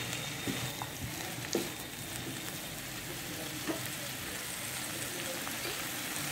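Chopped tomatoes, green chillies and spring onion greens sizzling steadily in oil in a nonstick pan as they are stirred with a silicone spatula, with a few short scrapes of the spatula along the way.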